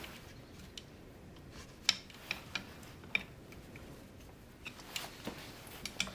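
Irregular small clicks and ticks of a tool prying a plastic seal housing off a Husqvarna 266 chainsaw, the sharpest click about two seconds in.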